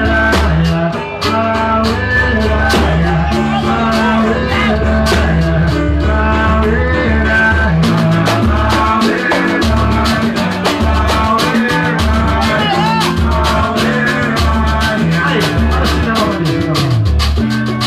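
Live band music with no lead vocal: a bass line of held low notes under a steady run of percussion strikes and a wavering melody line.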